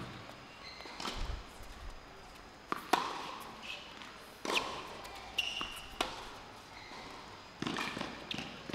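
Tennis rally on a hard court: a ball struck back and forth with racket hits and court bounces. It comes as sharp, short knocks about every one and a half seconds.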